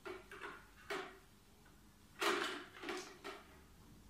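Seed hopper and sprocket shaft of a hand-push vegetable seeder being handled and fitted together: a few short clacks and scrapes of the parts, the loudest a little past halfway.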